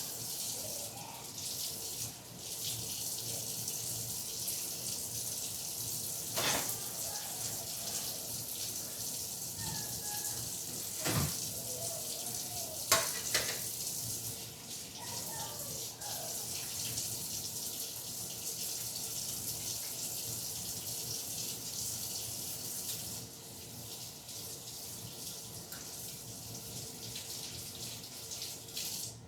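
Kitchen sink tap running, water splashing as chicken breasts are rinsed under it, with a few sharp knocks against the sink. The water is quieter for the last few seconds.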